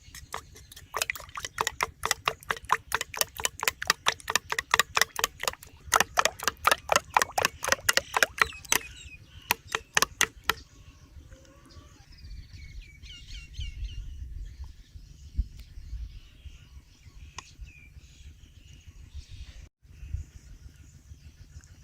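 Egg being beaten in a bowl, the utensil knocking against the bowl in rapid, even clicks, about four or five a second, for roughly nine seconds before stopping. After that, birds chirp faintly.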